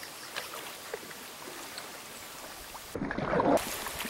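Kayak paddle splashing and water lapping over a steady wash of wind and water noise. A brief, louder burst comes about three seconds in.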